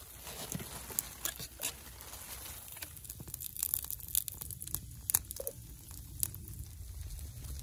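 Hot oil in a frying pan over a wood fire in a small firebox stove, crackling with scattered sharp pops. The hiss drops after about three seconds, as crumpet batter goes into the pan.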